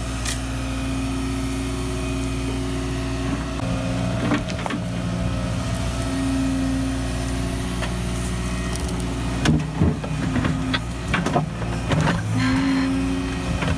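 Small tracked excavator running steadily, its hydraulics whining as the bucket digs a trench. From about nine seconds in come scrapes and knocks of the bucket against stones and soil.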